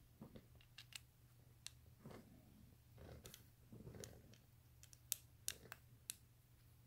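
Faint clicks and short scrapes of needle-nose pliers working small steel nuts on an aluminium plate, being tightened, with a few sharper metal clicks about five to six seconds in.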